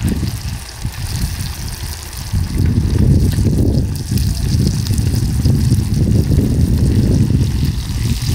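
Snakehead fish tikki frying in soybean oil: a steady sizzle over a loud, continuous low rumble.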